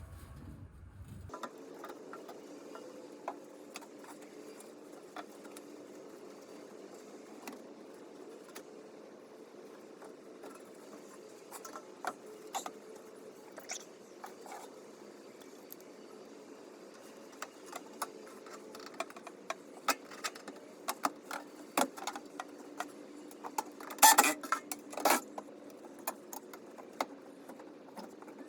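Scattered metallic clicks, clinks and knocks of tools and sheet-metal hardware being handled while a blower assembly is worked back into a heat pump cabinet. The clicks come more often from about two-thirds of the way through, with the loudest knocks a few seconds before the end, over a steady low hum.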